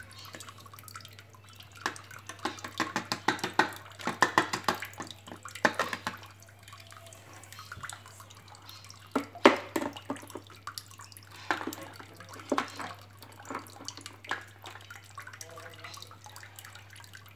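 Irregular small clicks and taps over a steady low hum. They come thick and fast from about two to six seconds in, then scattered, with the sharpest single tap a little before ten seconds in.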